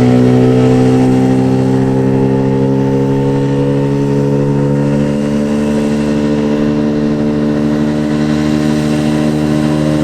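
Tohatsu 9.8 hp two-stroke outboard motor on a dinghy running hard, its pitch climbing slowly and steadily as the boat gets up on the plane and gathers speed toward top speed.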